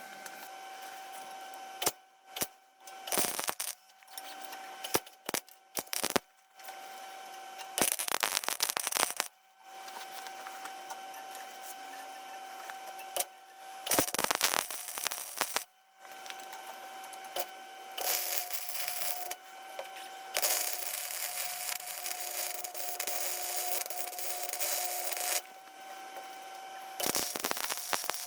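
Welder running in repeated bursts of crackling sizzle as the turn signal mounts are welded on. It starts with a few short tacks, then longer beads, the longest about five seconds, over a steady whine.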